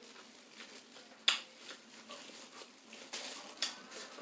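Quiet eating sounds, crab and seafood being handled and chewed, with a few sharp clicks or smacks; the loudest comes about a second in.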